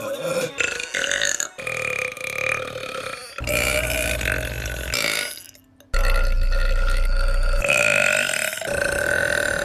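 A girl burping loudly: several long, drawn-out belches one after another, each breaking off suddenly. The two longest, about two seconds each, come in the middle with a deep rumble.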